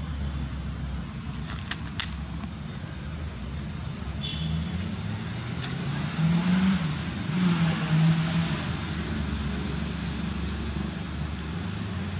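Steady low rumble of passing road traffic, swelling louder as a vehicle goes by about six to eight seconds in. A few sharp clicks near the start.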